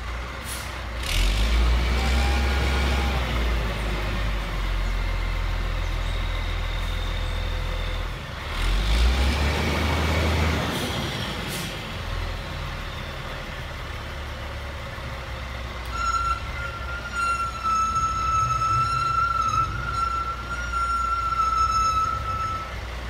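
Roll-off truck's diesel engine running under load, revving up twice as the hydraulic hoist tilts the loaded rails, with a few short sharp hisses. Near the end a long, steady high-pitched squeal sounds for several seconds as the dumpster is lowered.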